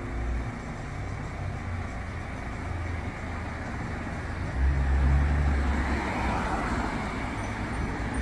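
Road traffic: a steady rumble of passing vehicles, with one vehicle passing close and louder from about four and a half seconds in, its tyre hiss swelling and fading over the next two seconds.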